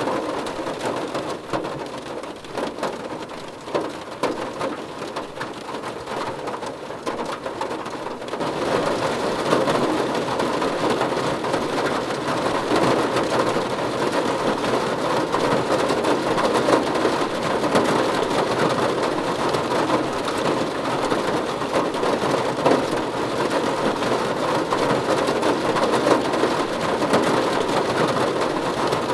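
Steady rain falling, growing heavier and louder about eight seconds in, then pouring evenly.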